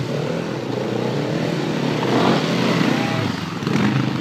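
Trail motorcycle engine running and revving, its pitch rising and falling.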